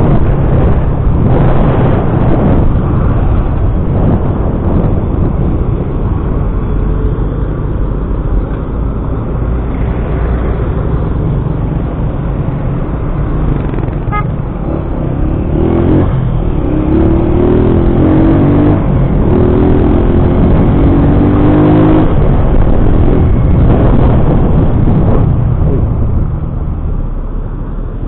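Riding a motorcycle in highway traffic: steady, loud wind and road rush over the engine, with passing vehicles. About halfway through, an engine rises in pitch in short repeated steps for several seconds, and the noise drops off near the end as the ride slows.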